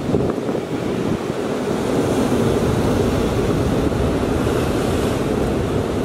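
Big ocean surf breaking and washing in a steady, continuous rush, with some wind on the microphone.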